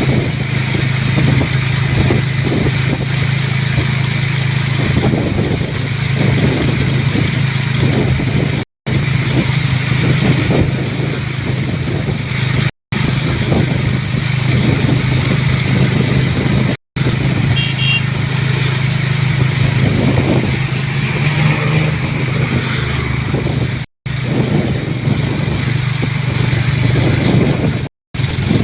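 Road vehicle on the move: a steady engine hum under road and wind noise. It is broken by several brief gaps of silence.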